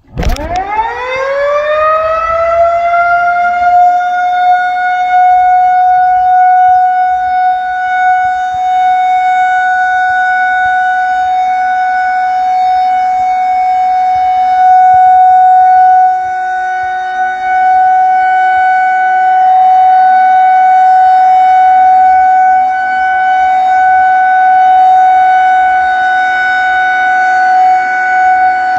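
Federal Signal 2001-130 electromechanical outdoor warning siren starting up for a routine test: its pitch rises quickly over about a second and a half, then holds one steady, loud high tone.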